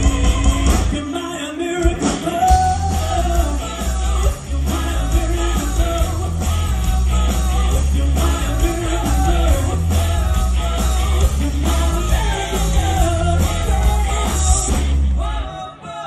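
Live band playing a song: a male lead singer over electric and acoustic guitars, bass and drums. The bass and drums drop out briefly about a second in, and the band falls away near the end.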